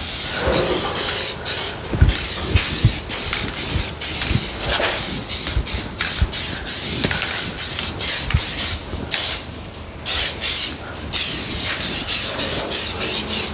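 Masking tape being peeled off freshly painted car body panels, a loud run of irregular crackling rips with a few short pauses and light knocks.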